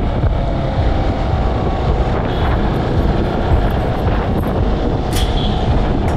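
Motorcycle riding along a road: steady wind rush on the microphone with the engine running underneath.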